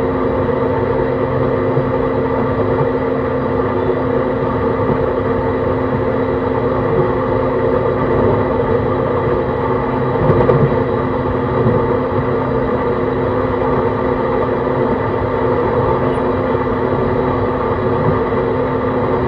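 Onboard running sound of a JR East E131 series 600 subseries electric train: a steady hum with several constant tones over rumbling wheel and rail noise, with one brief louder bump about ten seconds in.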